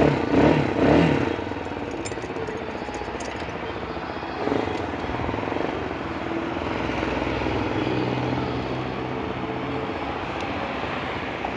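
Vento GT 250 motorcycle engine idling steadily, with a few brief louder sounds in the first second.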